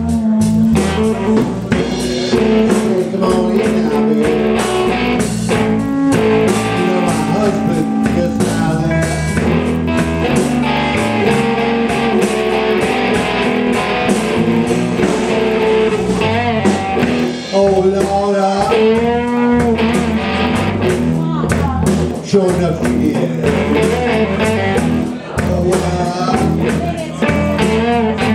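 Live blues band playing, led by electric guitar with bent, wavering notes over bass and drums.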